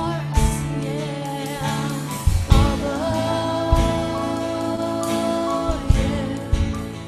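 Church worship band playing a slow song, with a singer holding a long note over sustained chords and a steady drum beat.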